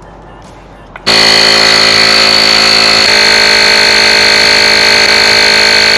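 Fanttik S100 cordless tire inflator's compressor switching on about a second in and running steadily with a loud, high-pitched whine while inflating a car tire.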